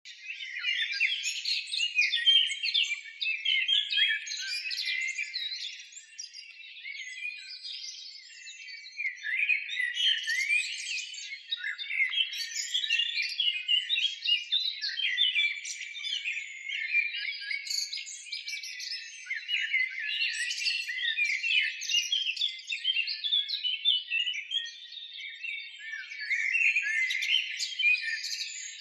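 Many small birds chirping and twittering at once, a dense continuous chorus of short overlapping calls that swells and fades in waves.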